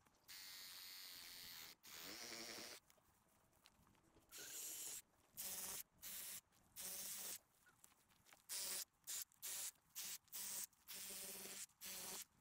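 Dry grass and brush rustling in about a dozen short bursts as weeds are pulled up and gathered by hand.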